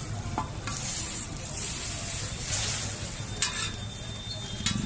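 Egg roll frying on a hot griddle: a steady sizzle, with a few short sharp scrapes or clicks, one about three and a half seconds in and one near the end.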